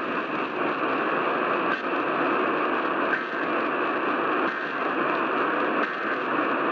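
Radio static: a steady hiss from a radio receiver with no program audio.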